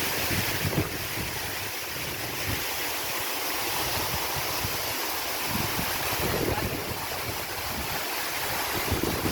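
Waterfall: a steady rush of falling water, with irregular gusts of wind buffeting the microphone.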